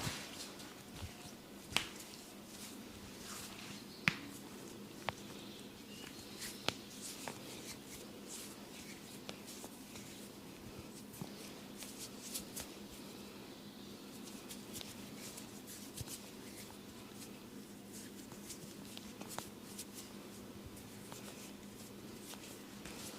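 Head massage by hand: soft rubbing with scattered sharp light clicks and taps, a few louder ones in the first several seconds.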